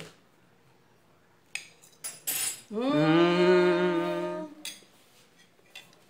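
A fork clicks against a plate a couple of times, then a person tasting cake gives one long, steady 'mmm' of relish lasting nearly two seconds.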